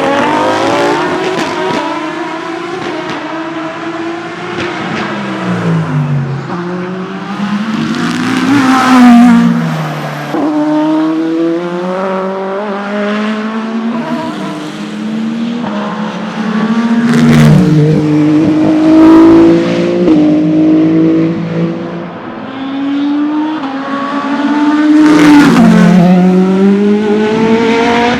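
Endurance racing cars (hypercars and GT3 cars) running hard on track, engines climbing in pitch through the gears with quick upshifts. Cars go past about three times, each time with a sharp drop in pitch.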